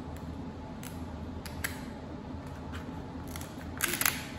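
Kitchen shears snipping and cracking through the hard shell of a cooked crab leg: a few separate sharp snips, then a louder cluster of cracks near the end.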